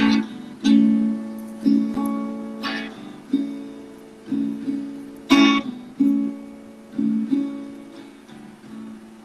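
Acoustic guitar strummed in slow chords, about one strum a second, each ringing out before the next, heard through a phone's live-stream audio.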